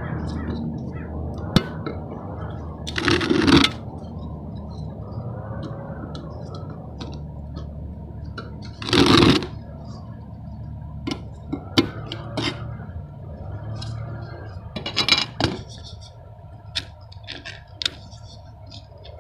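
Three short scrapes about six seconds apart, with scattered light clicks and taps between them, over faint background music.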